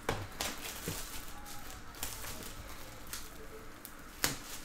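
Shrink-wrapped cardboard trading card boxes being handled: plastic wrap crinkling with scattered clicks and taps, the sharpest knock about four seconds in.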